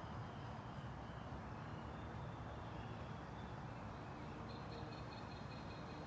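Birds singing faintly, thin high notes coming and going, with a quicker run of repeated high notes in the last second and a half, over a steady low background rumble.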